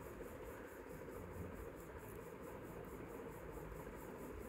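Faint steady background noise (room tone), with no distinct sounds standing out.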